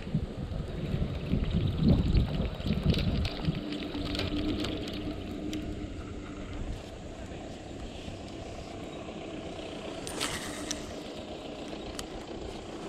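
Wind buffeting the microphone for the first few seconds, then the steady low hum of a distant engine running.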